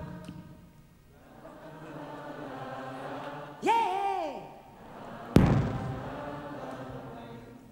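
Theatre audience faintly singing along to a 'la la la' refrain. Just before 4 s a single voice swoops up and down in a short note. A little after 5 s a sharp, loud hit from the band rings out and fades.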